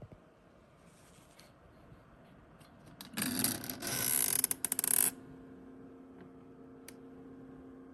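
Plastic skincare mini fridge being handled: about two seconds of scraping and rapid clattering clicks, then a steady low hum sets in.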